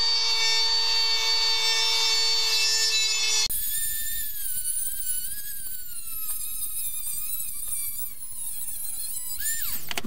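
Cut-off wheel running at a steady high whine, then from about three and a half seconds in biting into the motorcycle's exhaust pipe, its pitch wavering and sagging under the load of the cut.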